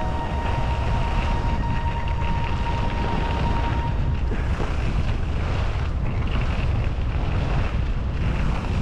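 Wind buffeting the microphone of a camera carried by a moving skier, a steady low rumble, with the hiss and scrape of skis sliding and turning over packed groomed snow.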